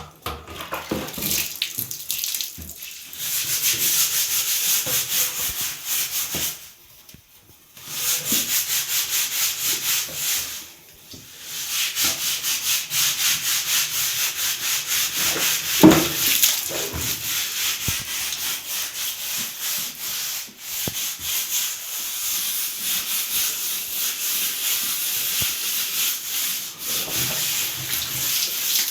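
A stiff brush scrubbing a hard surface in quick, rhythmic back-and-forth strokes, with short breaks about a quarter and about a third of the way in.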